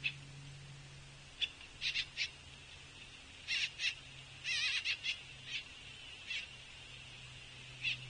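Juvenile pileated woodpecker giving hoarse begging calls: short rasping notes in irregular clusters, with one longer wavering call about halfway through.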